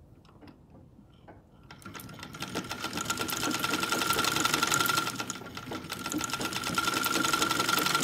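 Vintage black Singer sewing machine starting up about two seconds in and running fast: a rapid, even clatter with a steady high whine. It slows briefly a little past the middle, then speeds up again, after a few soft clicks at the start.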